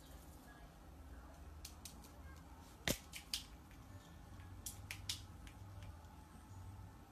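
Scattered short, sharp clicks and taps, with one louder knock about three seconds in, over a faint low hum.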